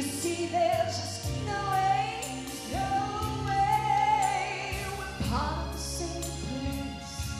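A woman belting a slow soul ballad into a handheld microphone over piano accompaniment. She sings with a strong vibrato and holds one long note in the middle before starting a new phrase.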